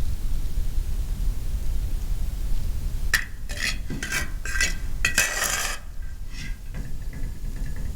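Metal utensil scraping and clinking against a pan in a quick run of strokes from about three to six seconds in, over a steady low rumble.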